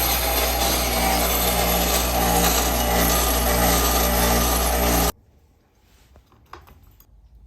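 A motor-driven power tool running at a steady speed, switched on just before and cut off abruptly about five seconds in, with a constant low hum under a loud even whirr.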